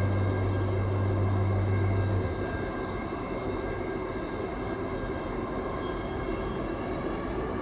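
Steady running noise of a Dubai Metro train in motion: an even rush with faint high whines held throughout. A low held tone from the background music stops about two seconds in.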